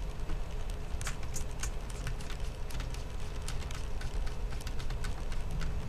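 Small Phillips screwdriver tip tapping and clicking against a laptop's plastic screen bezel: irregular light ticks, over a steady low hum.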